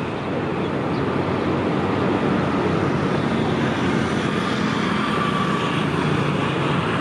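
Daewoo air-conditioned diesel railcar approaching slowly, its diesel engine running with a steady drone that grows louder over the first couple of seconds and then holds.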